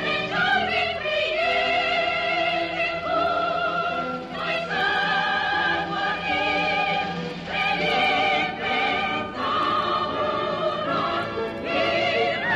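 Music: held notes sung with vibrato in a classical, operatic style over instrumental accompaniment, the melody moving from note to note about every second.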